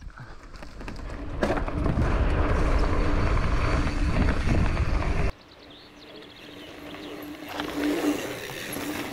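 JIB bike riding a dirt bike-park track: a rushing noise of tyres rolling and air over the bike that swells in about a second and a half in, then drops off suddenly about five seconds in. A steady low hum runs under it.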